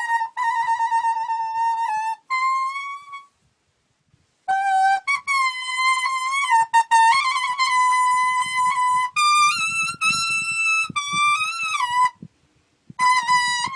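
Khmer leaf blowing (plom slek): a leaf held to the lips and blown like a reed, playing a single-line melody of held notes with slides and some vibrato. The melody comes in phrases, with a pause about three seconds in and another near the end.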